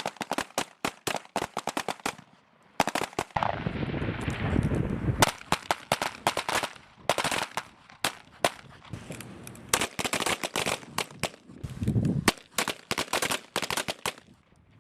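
A firing line of M17/M18 9mm pistols being fired, many shots from several shooters overlapping in a rapid, irregular crackle.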